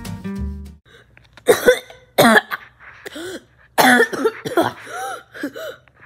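A boy coughing and clearing his throat in several short, harsh bursts, with a few brief voiced grunts among them. A guitar jingle dies away in the first second.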